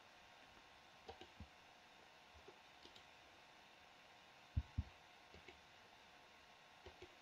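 Near silence with scattered faint computer mouse clicks, the loudest two in quick succession about four and a half seconds in.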